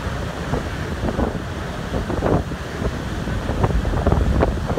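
Wind buffeting the microphone in uneven gusts, over the rushing of harbour water churned up by a cruise ship's propellers and thrusters below.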